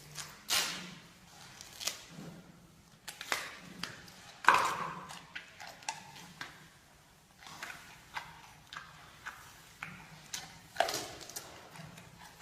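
Giant panda eating bamboo: irregular sharp cracks and crunches as it bites and chews the stalks, the loudest crack about four and a half seconds in.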